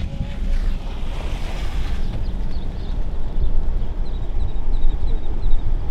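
Wind rushing and buffeting the microphone through an open car window while driving, over a heavy low road rumble.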